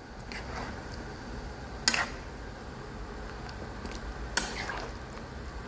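A metal spoon stirring a pan of simmering maraq chicken stew with zucchini and potatoes, knocking sharply against the pan twice, about two seconds in and again near four and a half seconds, over a steady low hiss of the pot.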